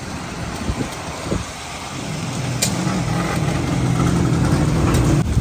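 A motorcycle passing close on a wet road, its engine hum growing steadily louder over the hiss of heavy rain, then cutting off abruptly just before the end.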